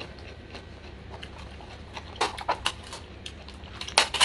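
A plastic straw being worked in a lidded plastic drinks cup: a scatter of clicks, knocks and scrapes from about halfway, loudest near the end.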